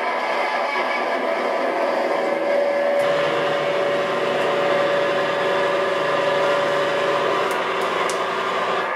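Live rock band's amplified guitars and bass sustaining a loud, steady drone of noise with no beat, a single held tone ringing through the middle; low bass notes come in about three seconds in.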